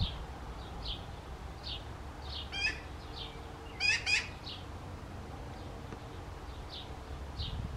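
A magpie chick giving harsh, raspy calls, once a little before the middle and twice in quick succession about halfway through. Behind them, a thin, high chirp repeats about every three-quarters of a second.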